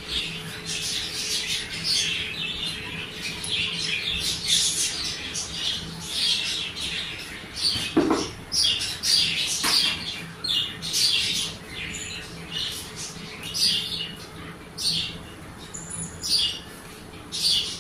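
Birds calling in a quick run of short, high chirps and squawks, over a faint steady hum, with a soft knock about eight seconds in.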